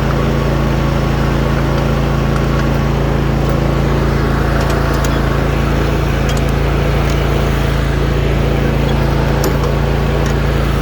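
Snapper Pro S150 zero-turn mower's Briggs & Stratton engine running at a steady, even speed.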